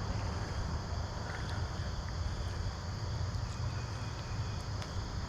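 Insects trilling steadily, over a low steady rumble with a few faint ticks.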